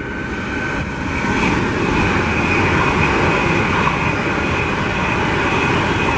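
Virgin Trains high-speed passenger train passing at speed: a steady rush of wheels on rail and air, building about a second in and then holding loud, with a faint high steady tone over it.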